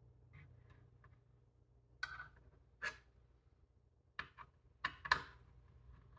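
About six sharp clicks and taps, spread over the last four seconds, of small plastic and metal computer parts being handled while a Lenovo ThinkCentre M73 Tiny mini PC is opened up.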